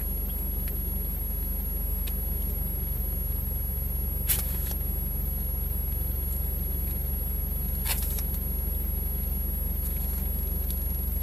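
Steady low rumble of a car's engine and road noise heard inside the cabin, with two brief clicks about four and eight seconds in.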